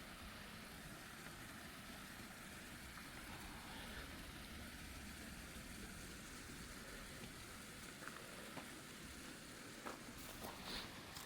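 Quiet, steady outdoor ambience: an even rushing hiss, with a few faint clicks or rustles near the end.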